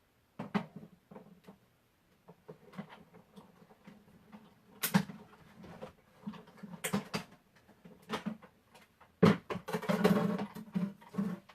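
Scattered knocks, taps and clicks of things being handled and set down, with a denser run of knocking and rubbing near the end.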